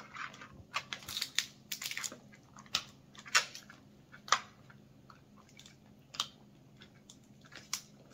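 Cooked rock crab shell cracking and crunching as it is pulled apart by hand and eaten: an irregular run of sharp snaps, the loudest about three and four seconds in.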